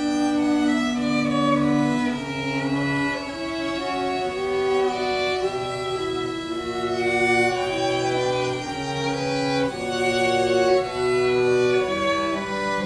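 String quartet, violins with a cello, bowing a slow piece in sustained chords that change about every second or so.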